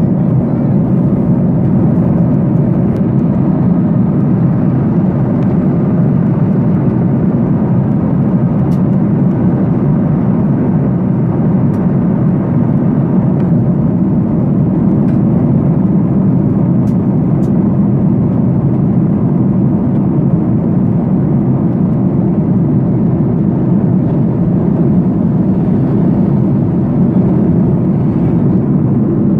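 Airliner cabin noise: a steady, even low rumble of engines and airflow heard from inside the passenger cabin.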